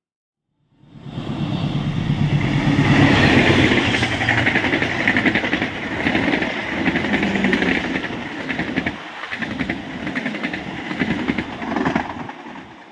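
Long-distance passenger train (KA Jayabaya) passing close by at speed: a steady rushing rumble with rapid wheel clicks over the rails. It starts about a second in, after a brief silence, and fades near the end as the last coach goes by.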